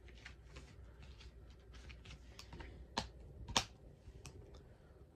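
Faint handling noise: scattered light clicks and taps, with two sharper clicks about three and three and a half seconds in.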